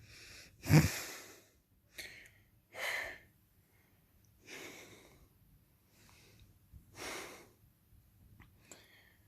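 Snoring: a loud snort about a second in, then a series of softer breathy snores and exhales roughly every one to two seconds.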